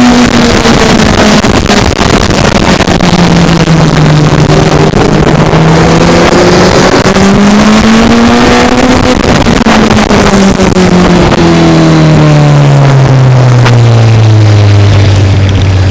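Racing sidecar outfit's engine heard onboard under heavy wind noise. The engine pitch dips, climbs again around the middle, then falls steadily over the last few seconds as the outfit slows.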